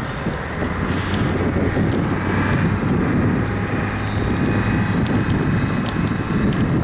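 Toyota rock crawler's engine revving hard, growing louder about a second in, with its tyres churning loose dirt and gravel and scattered small clicks, as the buggy climbs a steep bank and tips onto its side.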